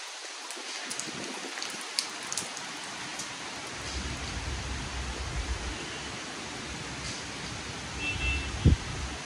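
Steady rain falling, with scattered drop ticks. A low rumble comes in about halfway through, and a single sharp low thud sounds near the end.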